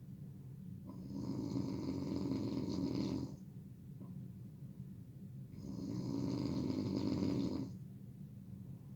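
A sleeping person snoring loudly: two long snores of about two seconds each, roughly four and a half seconds apart, with quieter breathing between.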